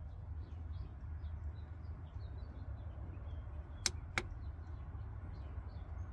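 Two sharp clicks about a third of a second apart, roughly four seconds in, from the buttons of an aftermarket car stereo being pressed while stepping through FM stations, over a low steady hum.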